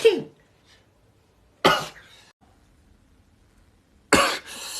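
A man sneezing twice: one sharp sneeze about a second and a half in, and a second, longer one near the end.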